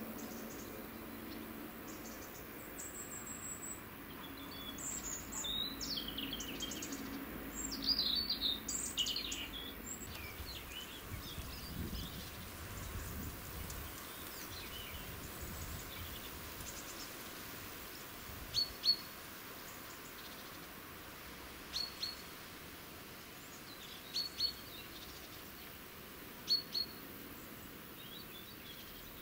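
Small songbirds chirping and twittering for the first ten seconds or so, then one bird giving short double chirps every two to three seconds.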